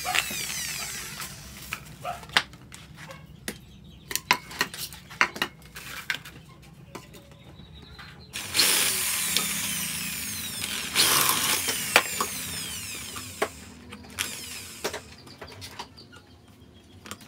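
Corded electric drill drilling into the metal end cap of a motorcycle exhaust pipe, run in several bursts from about halfway through; each time the trigger is let go its whine falls away as the motor winds down. Before that, clicks and knocks as the bit is fitted into the chuck.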